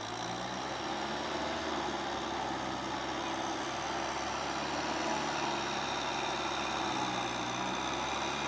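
Kubota M6040SU tractor's diesel engine running steadily under load as it pulls a Maschio rotary tiller through a flooded rice paddy, growing slightly louder as it comes closer.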